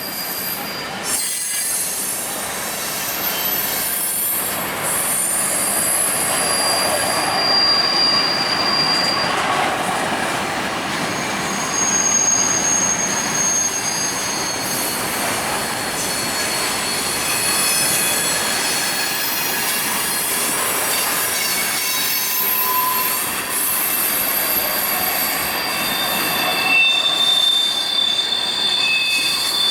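Freight train cars rolling past on steel wheels, with a steady rolling noise and high wheel squeals that come and go at shifting pitches.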